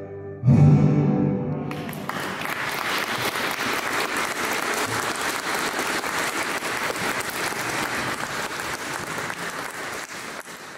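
A final chord struck on an acoustic guitar rings out and fades. About a second later an audience starts applauding and keeps clapping steadily.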